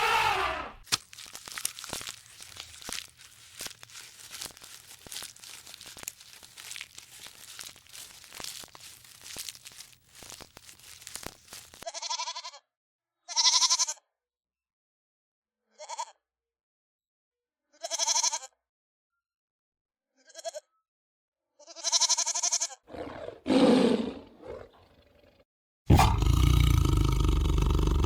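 A series of about seven short, high goat bleats separated by silent gaps. Before them comes a long stretch of faint crackling with many clicks. Near the end a loud, sustained roar begins.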